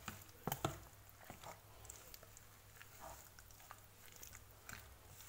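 Faint wet squelching of raw chicken strips in an egg-and-spice marinade being stirred by spoon and hand, with scattered clicks of a metal spoon against a plastic tub, two sharper clicks about half a second in.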